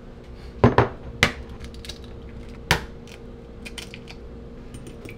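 Eggs being cracked open over a glass bowl: several sharp knocks of shell in the first three seconds, then lighter clicks. A steady fan hum runs underneath.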